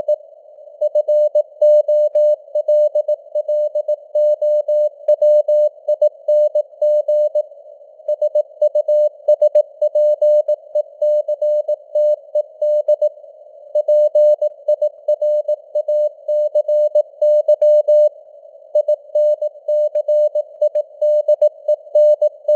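Morse code at 18 words per minute: a single mid-pitched tone keyed on and off in dots and dashes, with short gaps between words, over a hiss of simulated radio band noise.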